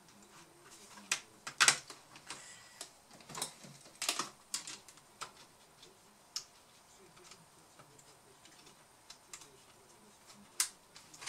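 Irregular light clicks and taps of a small screwdriver and screw against a laptop's plastic chassis and motherboard, during screw-in work on the Wi-Fi card. The sharpest click comes a little under two seconds in, then a quieter stretch with a few isolated ticks.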